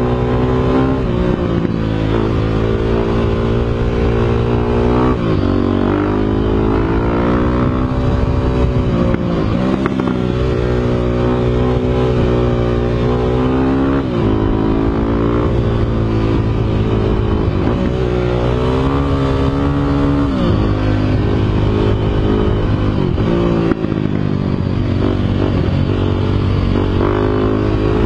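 Motorcycle engine running continuously, its pitch climbing and then dropping back every few seconds, as when revved up repeatedly or accelerated through the gears.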